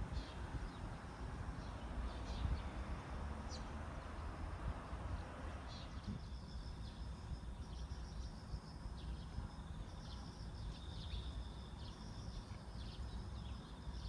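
Low steady rumble with many short high-pitched chirps, repeating from about six seconds in.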